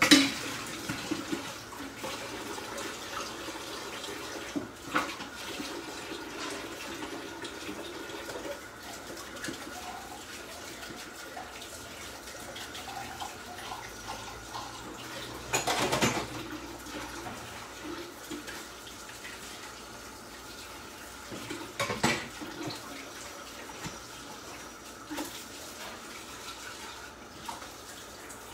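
Steady sound of water in a kitchen, with a few sharp knocks: a loud one right at the start, one about halfway through and another about three-quarters through.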